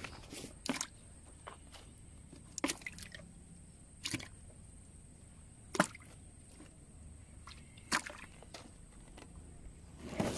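Scattered drips and small splashes of water, about five short ones spread a second or two apart, over a low steady background.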